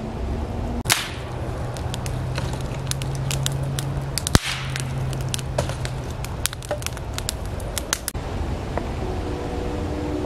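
Campfire crackling, burning wood giving many sharp, irregular pops and snaps, the loudest about a second in and just past four seconds. A steady low hum runs underneath.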